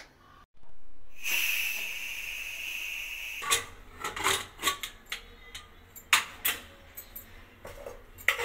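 Steam hissing steadily from an aluminium pressure cooker for about three seconds, then a run of metal clanks and scrapes as the lid is worked open and a steel spoon stirs inside the pot.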